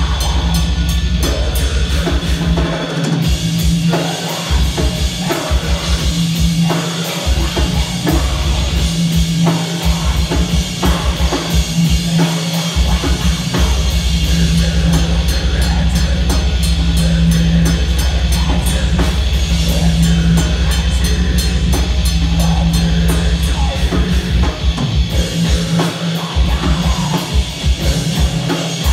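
Heavy metal band playing live and loud: distorted guitar over fast, dense drumming with a heavy kick drum, and vocals into the mic. The low end cuts out for short stops a few times.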